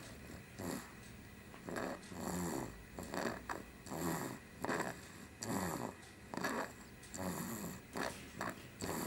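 Young child snoring in his sleep, a short snore on each quick breath, repeating about once every half second to a second.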